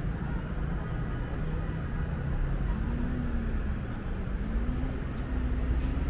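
City street traffic noise: a steady low rumble of passing cars and buses.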